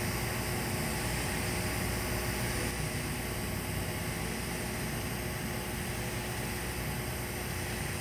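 TIG welding arc burning steadily on carbon steel pipe at 175 amps during a filler pass: a steady hiss with a faint even hum.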